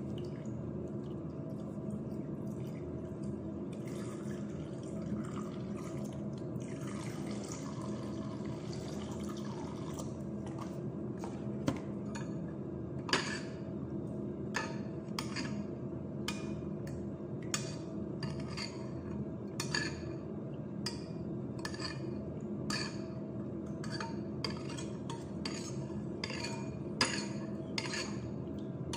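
Liquid poured from a small carton into a glass bowl, followed by a run of light, sharp clicks and taps at about one a second as ingredients are handled over the bowl. A steady hum runs underneath.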